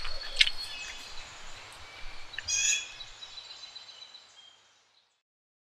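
Woodland ambience of birds chirping and calling over a soft background hiss, with a couple of louder short calls. It fades out to silence near the end.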